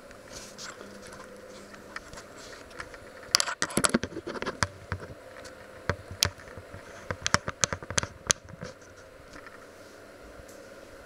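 Handling noise from a handheld camera being picked up and moved: scattered sharp clicks, knocks and scrapes in two bursts, about three and a half and seven and a half seconds in.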